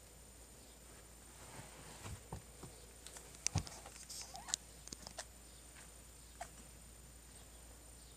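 Faint, soft rustling and scattered light clicks close to the microphone, bunched in the middle with the sharpest click about three and a half seconds in, over low background hiss.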